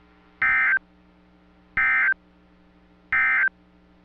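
NOAA Weather Radio SAME end-of-message data bursts: three short, identical buzzy warbling bursts about 1.4 seconds apart, marking the end of the special marine warning. A faint steady hum lies beneath.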